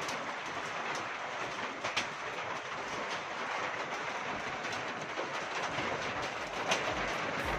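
Plastic wheels of a toy bus rolling over a plastic-covered table: a steady rolling rumble with a few sharp clicks.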